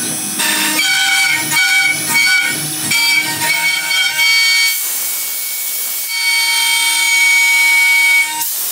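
CNC router spindle running with its end mill cutting a shallow square pocket in a hardwood board: a steady high whine over a cutting noise. For the first few seconds the cut swells and fades about twice a second as the bit sweeps back and forth, then it settles into a steadier whine with a harsher hiss.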